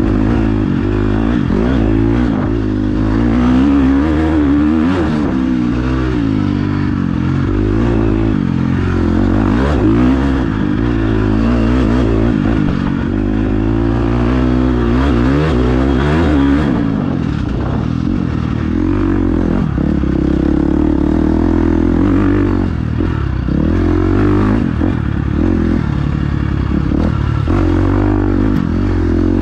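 Dirt bike engine being ridden hard, its pitch repeatedly climbing and dropping with throttle and gear changes, with clattering noise over it.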